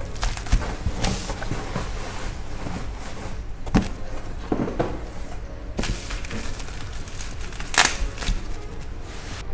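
Bubble wrap rustling and crinkling as a cardboard box is opened and handled, with a few sharper knocks, over background music.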